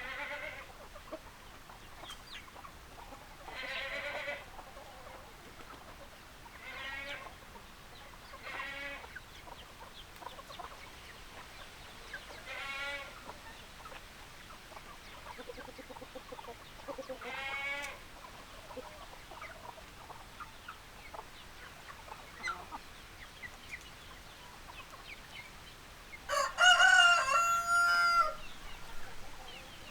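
Chickens calling, about six short wavering calls spaced a few seconds apart, then a rooster crowing loudly about three-quarters of the way through, a long held call that is the loudest sound.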